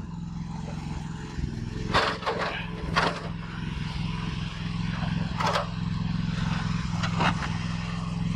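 LS15R mini excavator's engine idling steadily, with several sharp knocks and scrapes from the camera being handled and set down.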